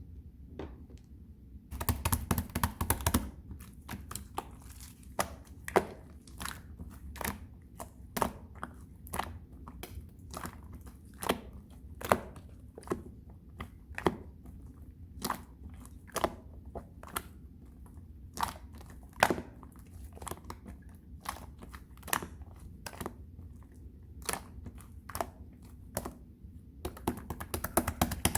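Fondant slime being squeezed and poked by hand, giving a string of sharp sticky clicks and pops about once a second. There are bursts of rapid crackling about two seconds in and again near the end.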